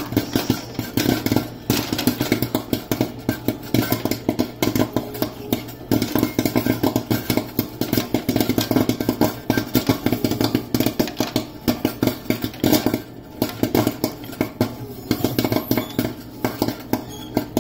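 Popcorn kernels popping fast in the hot-oil kettle of a popcorn machine, a dense, irregular run of pops over the machine's steady hum.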